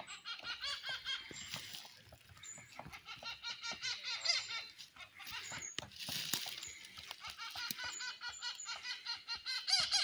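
Magellanic woodpeckers giving rapid chattering runs of short, squeaky, arched notes, laugh-like, in three runs of a couple of seconds each, with scattered sharp taps in between.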